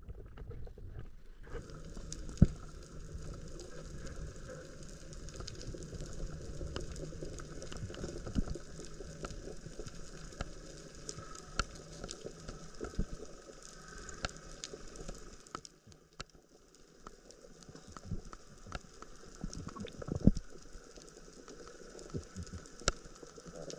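Underwater sea ambience picked up by a submerged camera: a steady hiss with dense, irregular crackling clicks, and a couple of louder knocks.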